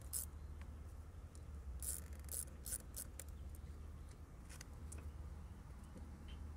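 Faint scattered clicks and scrapes of an 8 mm driver tightening a worm-gear clamp on a rubber intake hose at the throttle body, with the hose and clamp rubbing as they are handled.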